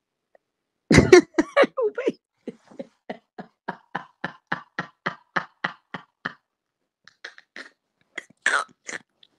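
A woman laughing in a long, even run of short breathy bursts, about four a second, after a sharp cough-like burst about a second in; a few fainter bursts follow near the end.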